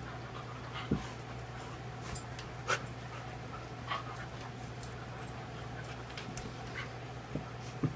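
A golden retriever and a black puppy play-wrestling, with a handful of short, sharp sounds spread through, the strongest about a second in, near three seconds and near the end.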